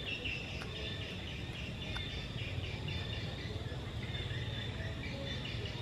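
Outdoor ambience: many short, repeated bird chirps and a steady high insect drone over a low, steady rumble.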